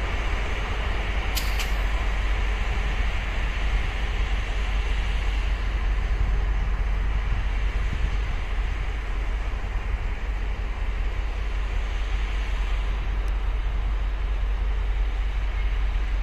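Diesel locomotive R110 running steadily as it hauls a train away, a continuous low rumble with a brief sharp click about a second and a half in.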